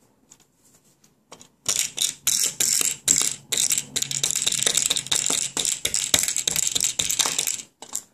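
Small plastic toy treat dispenser pressed and jiggled over and over: fast, irregular plastic clicking and rattling that starts about a second and a half in. The plastic bone treats are stuck and won't come out.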